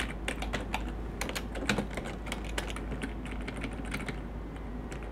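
Typing on a computer keyboard: an irregular run of key clicks.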